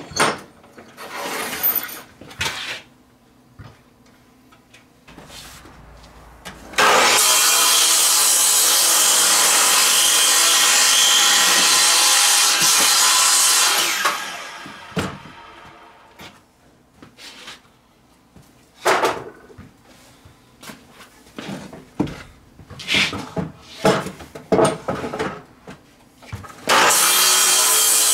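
DeWalt sliding miter saw cutting through a wooden board: the motor starts about seven seconds in, cuts steadily for about seven seconds and then winds down, followed by scattered knocks and clicks, and a second cut starts near the end.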